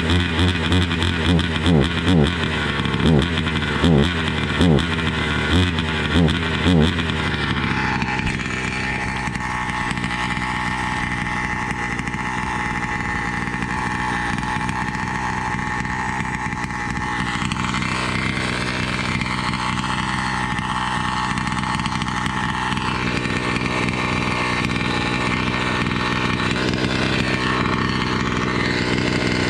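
Horamec two-stroke chainsaw with a modified exhaust being blipped, the engine note rising and falling about once a second. About seven seconds in it settles into steady running.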